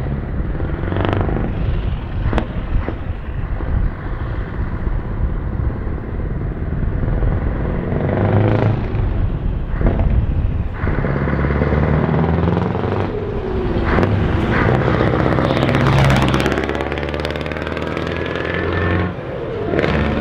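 Very loud Scania 4-series truck diesel engine revving hard as the tractor unit accelerates away, its note rising and falling several times with the throttle, at its loudest over the middle of the run.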